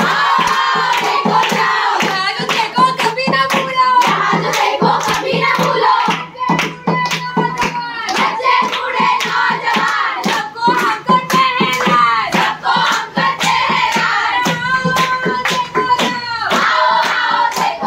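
Voices singing a song together, kept in time by steady hand clapping at about three claps a second.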